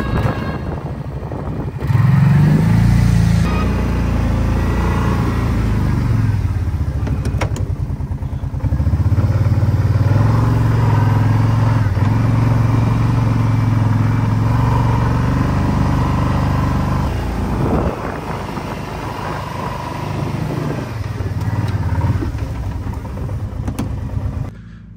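Red four-wheeler ATV's engine running as it is ridden: it revs up about two seconds in and runs steadily at higher throttle through the middle, then eases off near the end.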